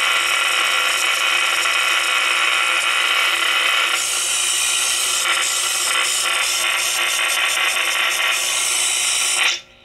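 Five-tube 1960s Hi-Tone Japanese tube radio squealing through its speaker with the volume turned up: a loud, steady, high-pitched squeal mixed with hiss that cuts off abruptly near the end. The owner blames bad, leaky capacitors for the squeal.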